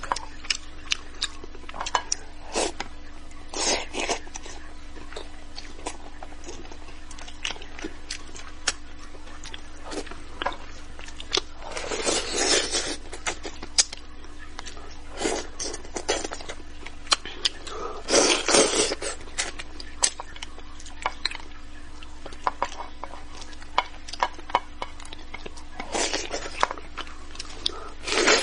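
Close-up eating sounds of a person working through spicy braised fish with chopsticks: many small mouth clicks, lip smacks and chopstick taps, with several longer sucking slurps as she draws flesh off the bones, the loudest about 12 and 18 seconds in and again at the end.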